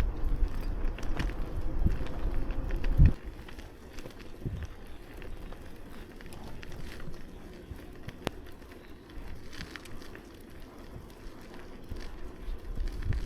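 Bicycle riding on snowy streets: low rumble from the tyres and wind, with scattered clicks and crackles. There is a sharp thump about three seconds in, after which it runs quieter until the rumble picks up again near the end.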